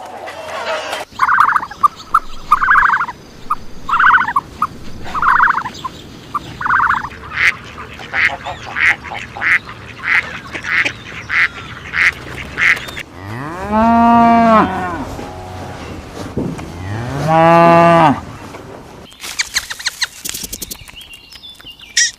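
Waterfowl honking in a string of repeated calls, speeding up after about seven seconds. Then a cow moos twice, each moo a long call of about a second and a half that rises and falls.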